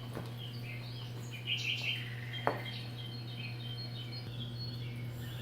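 Small birds chirping in short calls over a steady low hum, with one quick upward-sweeping chirp about halfway through.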